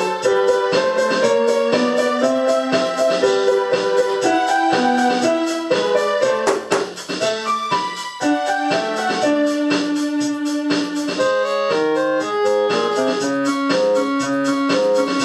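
Instrumental music led by keyboard or electric piano, playing quick, evenly paced notes over a chordal accompaniment; it thins out briefly about seven seconds in.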